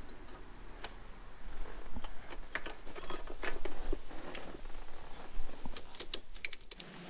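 Scattered clinks, taps and rustling as a motorcycle's steel rear axle and tools are picked up and handled, with a quick run of sharp clicks near the end.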